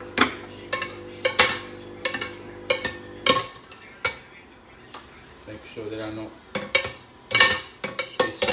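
Metal ladle knocking and scraping against a metal sieve and pot while cooked tomatoes are pressed through to make tomato sauce: a string of irregular sharp clinks and clanks.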